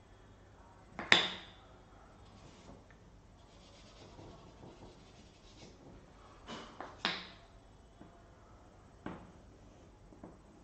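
Chalk on a blackboard: a few sharp taps as the chalk strikes the board, the loudest about a second in and others between six and nine seconds, with soft scraping strokes between them.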